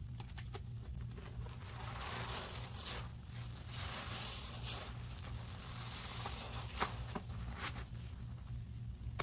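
A sponge soaked in foamy cleanser paste is squeezed and kneaded by gloved hands, making wet squelching and the crackle of foam bubbles. The sound comes in swells, with a few sharp wet clicks near the end.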